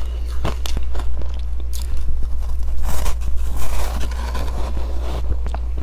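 Close-miked biting and chewing of powdery ice dusted with matcha powder: irregular crisp crunches, with a longer stretch of fine crackling chewing about three to four seconds in.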